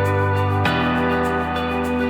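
Instrumental background music: sustained chords with a plucked guitar and a soft, steady beat, the chord changing about two-thirds of a second in.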